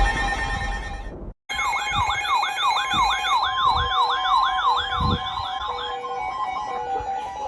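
Several weather radios sounding their alert alarms at once: a siren-like warble sweeping up and down about three times a second over steady alarm tones, cutting out for a moment about a second in. Near the end the warble stops, leaving steady tones and repeated short beeps.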